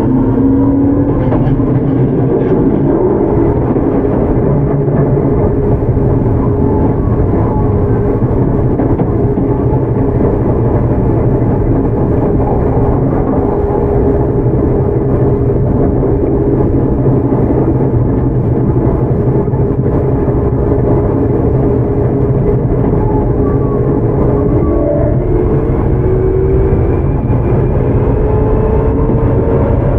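Tokyu 9000 series electric train with an early Hitachi GTO-VVVF drive, running and heard from inside the car. There is a steady rumble of wheels and running gear with traction-motor tones that shift in pitch at the start and rise over the last few seconds.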